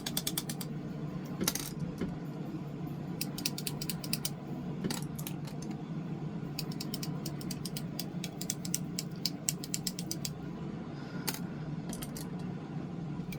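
A makeup brush tapping and working against an eyeshadow palette, heard as short runs of quick small clicks every second or two.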